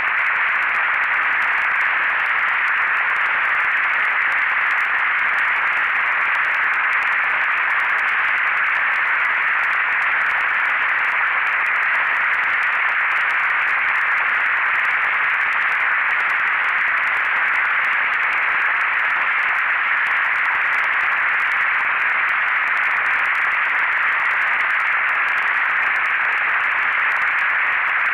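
Synthesized noise generated in SuperCollider: a steady, unchanging hiss like radio static, filtered so that it sits in the upper-middle range with little bass or top treble.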